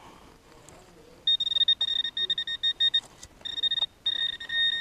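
Garrett pinpointer sounding over a coin in the hole: a high electronic tone that pulses rapidly from about a second in, then holds steadier in two longer stretches near the end, signalling the target at close range.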